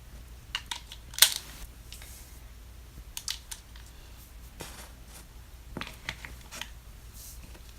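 Scattered light clicks and taps of small plastic toy pieces being handled, the loudest about a second in.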